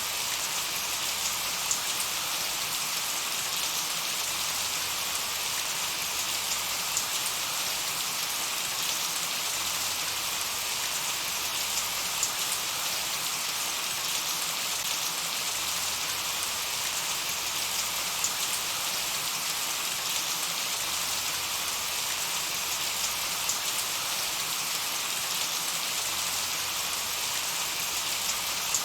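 Steady light rain falling, a soft even hiss with scattered individual drops ticking.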